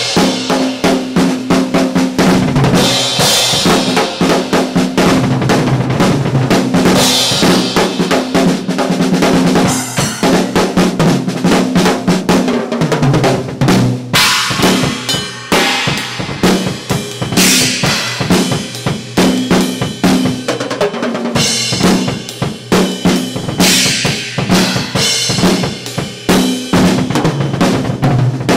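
Drum kit played solo in a fast rock/metal style: rapid bass drum and snare hits, rolls and rimshots, with cymbal crashes washing in every few seconds. The kit is picked up by just two overhead microphones.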